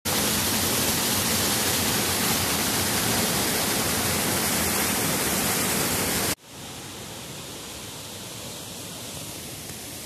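Small waterfall pouring over rock into a pool: a loud, steady rush of water that cuts suddenly to a softer, steady flow about six seconds in.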